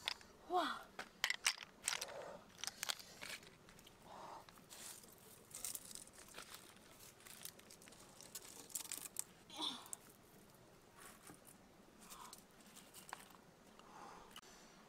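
Cooked river snail shells clicking and clattering against one another as they are handled and heaped on a banana leaf, with light crinkling of the leaf. The clicks come in scattered clusters, busiest in the first few seconds.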